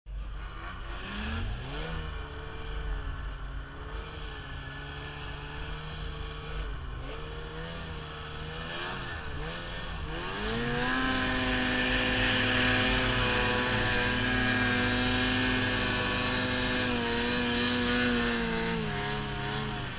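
Ski-Doo snowmobile engine running under throttle. Its revs rise about a second and a half in and waver, then climb to a steady higher pitch from about ten seconds in, and ease off just before the end.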